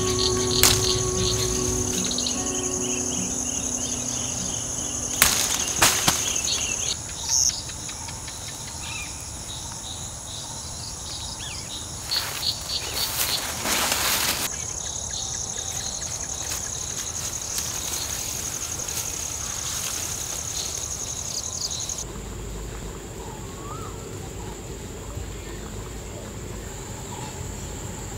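Outdoor insect chorus, a steady high-pitched chirring whine, with its pitch shifting a little about 22 seconds in. A few brief rustling noises come about five and twelve seconds in.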